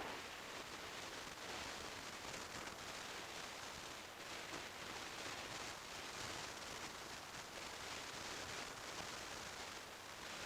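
Steady hiss of wind and road noise picked up by a motorcycle-mounted action camera, with no clear engine note.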